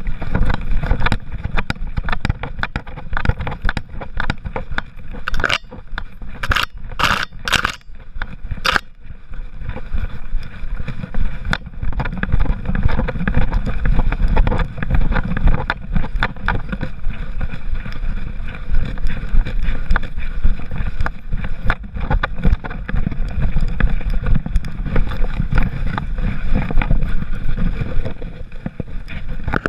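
Handling noise from a GoPro HERO3 in its housing strapped to a walking poodle's back: constant knocking and rubbing of the camera against the harness and curly fur over a steady low rumble, with a few louder clacks about six to nine seconds in.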